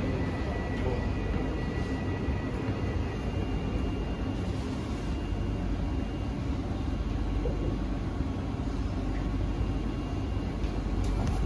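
Cabin noise inside a Kawasaki–CRRC Sifang C151C metro train as it slows and stops at a station platform: a steady rumble with a high thin whine that fades out within the first few seconds, then steady running noise while the train stands. A few faint clicks come near the end.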